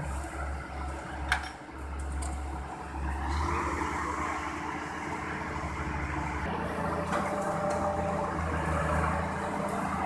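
Combine harvesters running steadily in a wheat field, engine and threshing machinery together, with one sharp click about a second in.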